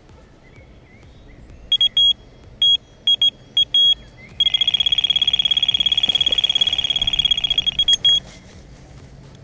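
Delkim electronic bite alarm on a carp rod. A few single high beeps come first, then from about four seconds in a continuous, rapid beeping lasts nearly four seconds. This is a carp taking line in a run. It cuts off near the end as the rod is lifted.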